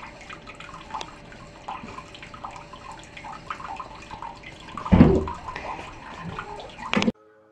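Bathroom sink tap running a thin stream of water into the basin, with a loud thump about five seconds in. The water sound cuts off suddenly near the end.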